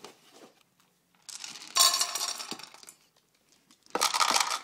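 Dry cat biscuits poured into a stainless-steel food bowl, rattling and clinking against the metal in two pours, the second near the end.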